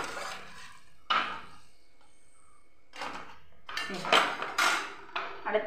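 Steel slotted spoon clinking and scraping against a frying pan and steel plate as a fried cake is lifted out of the oil: a few separate knocks, then a quick run of clatters near the end.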